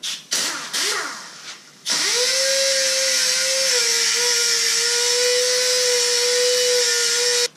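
Handheld pneumatic grinder grinding metal bare so a weld will take. A couple of short bursts come first, then from about two seconds in a steady high whine with a hiss, which dips slightly in pitch partway through and cuts off suddenly near the end.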